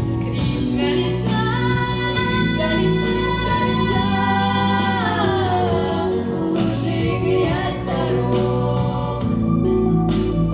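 A trio of young girls singing a song together over instrumental accompaniment, holding a long note that slides down in pitch about five seconds in.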